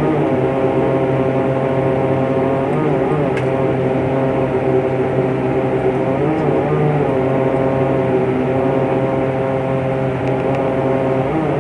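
Propeller airplane's engines running with a steady drone of several pitched tones, the tones wavering briefly now and then.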